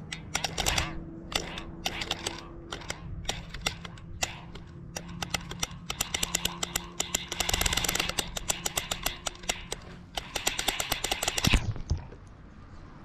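Rapid clicking and rattling from a camera being lowered on a line, sparse at first and then dense and fast. Near the end it ends in a low thump as the camera enters the water, and the sound turns dull and quieter underwater.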